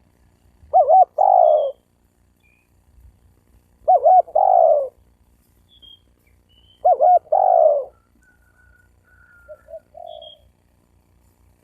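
Spotted dove cooing: three calls about three seconds apart, each two quick notes followed by a longer one, then a softer, shorter call near the end.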